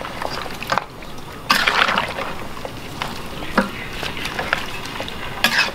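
A spatula stirring goat tail braising in a saucy liquid in a wok: the sauce sloshes, with a few knocks and scrapes of the spatula against the pan.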